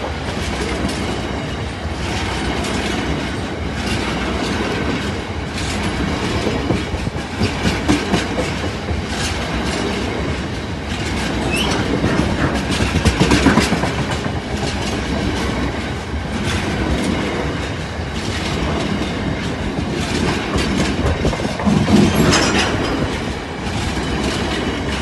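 Freight train of tank wagons rolling past close by, its wheels clattering over the rail joints in an irregular clickety-clack, with a few louder swells as wagons go by.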